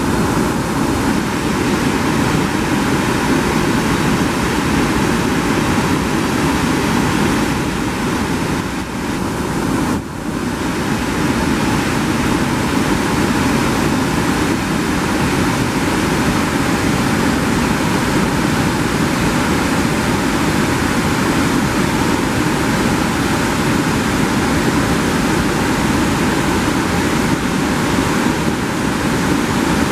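A waterfall and whitewater rapids in high flow, making a steady, loud rush of water.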